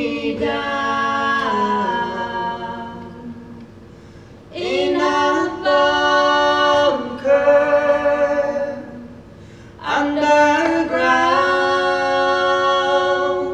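Unaccompanied voices singing slow, held chords in three long phrases, each a few seconds long with a short breath between.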